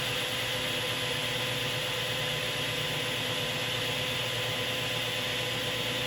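1990s Delta contractor table saw running at full speed with an even, steady hum and whine, its motor driving the blade through the stock V-belt. It runs smoothly enough for a nickel to stand on it.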